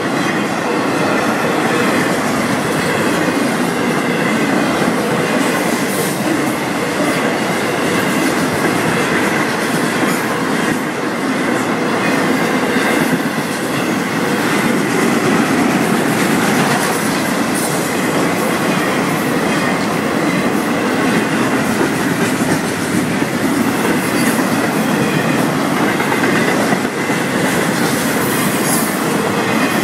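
Florida East Coast Railway intermodal freight cars rolling steadily past close by, a continuous loud rumble with the clickety-clack of wheels over rail joints and a faint steady high tone from the wheels.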